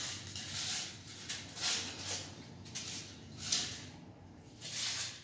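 Thermocol (styrofoam) packing pieces scraping and rustling against a cardboard box and plastic wrap as they are pulled out, in a run of irregular noisy bursts.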